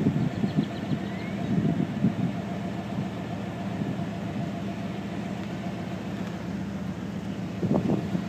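A vehicle engine idling steadily, heard from inside the cab.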